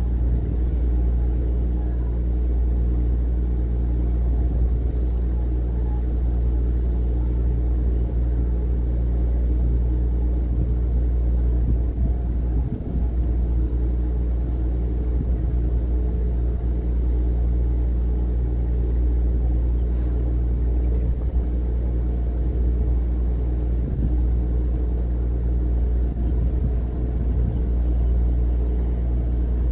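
Diesel engine of an Amazon passenger riverboat running at a steady cruise, a deep, even drone with a constant hum.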